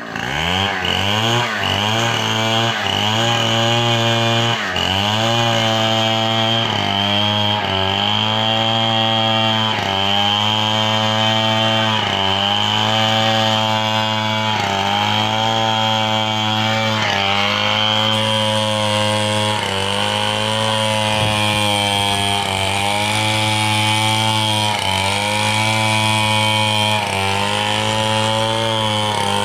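A chainsaw revs up, then cuts a log under load, its engine note dipping and recovering every second or two.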